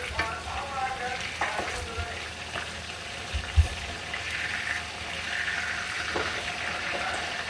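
Food frying and sizzling in a pan, a steady hiss with a few short clicks and one louder low thump about three and a half seconds in.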